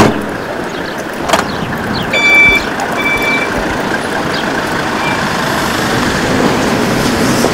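Steady street traffic noise, with two short high electronic beeps, like a vehicle's reversing alarm, about two and three seconds in.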